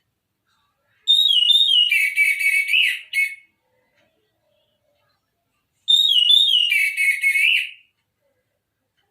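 Orange-headed thrush singing: two phrases of clear whistled notes, each about two seconds long, starting high and stepping down in pitch with a warbling wobble, a few seconds apart.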